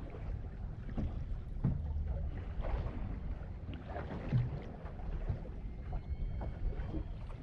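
Wind and water noise around a small anchored fishing boat: a steady low rumble with scattered irregular knocks. A few faint thin tones come in near the end.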